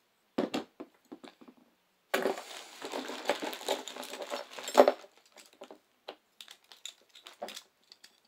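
Plastic zip-lock bag crinkling for about three seconds in the middle as hands rummage inside it, with scattered clicks of Beyblade spinning tops being picked up and set down on the table before and after.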